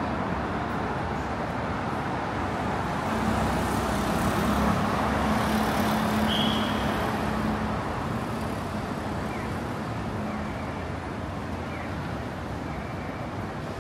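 City street traffic noise, with a vehicle's engine hum swelling as it passes about three seconds in and fading away by ten seconds. A short high beep sounds near the middle.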